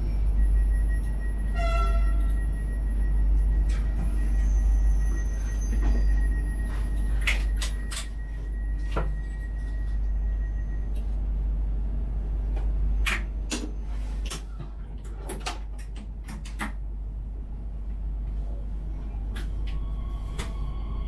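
Talent 3 electric multiple unit standing at a station, heard from the driver's cab: a steady low hum, a short pitched beep about two seconds in, then a run of clicks and knocks typical of sliding doors and cab equipment. Near the end a steady whine sets in as the train starts to move off.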